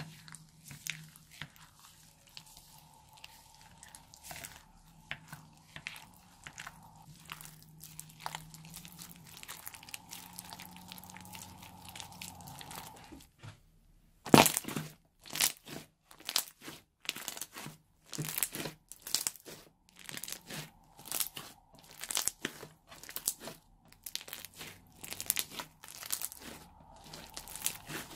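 A plastic spatula stirs small foam beads in a glass dish, making faint clicks and rustling. Then a crunchy floam slime full of foam beads is squeezed and pressed by hand, giving loud crackling crunches about once a second.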